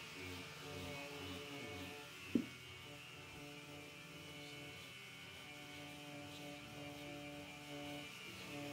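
A faint steady hum of sustained tones, with a single sharp click about two and a half seconds in.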